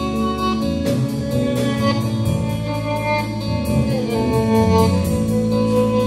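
Live instrumental slowcore rock: electric guitar and bass holding sustained notes over a drum kit with steady cymbal strokes.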